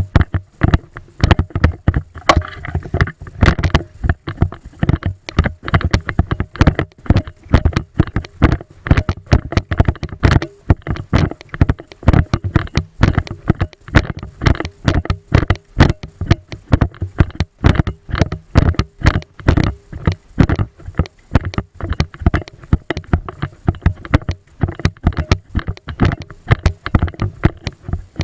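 A long, irregular run of sharp knocks and clicks close to the microphone, several a second, with dull thuds underneath.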